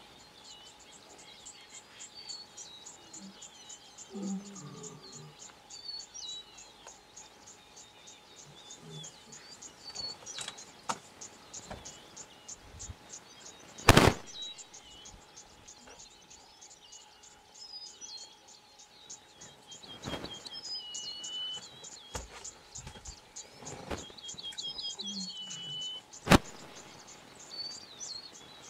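Open-grassland ambience: small birds chirping in short repeated calls over a fast, high, steady ticking, broken by a few sharp clicks, the loudest about halfway through and another near the end.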